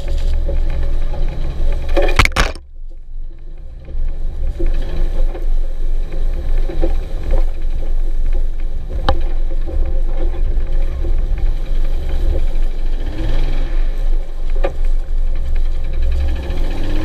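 1997 Jeep Wrangler TJ's 4.0-litre straight-six running while driving, revs climbing a couple of times near the end. The owner says the motor is knocking but is not sure whether it is the engine or the transmission. A sharp clatter about two seconds in, then the sound drops for a moment.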